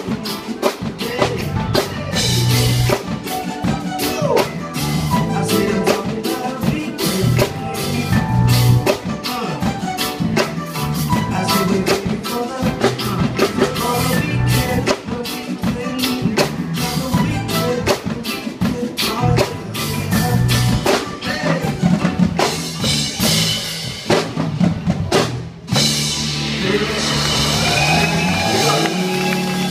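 Live band playing amplified music: drum kit keeping a steady beat under electric guitar, bass and keyboards. About four seconds before the end the drumming stops and sustained notes carry on.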